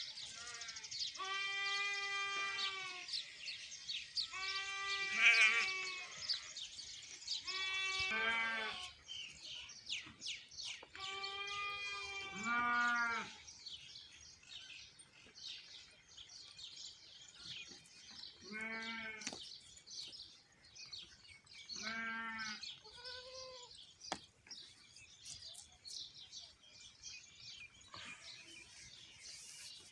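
A farm animal bleating about seven times. Each call is high and wavering and lasts one to two seconds. The first four come close together and are loudest; the later ones are shorter and fainter. Birds chirp in the background.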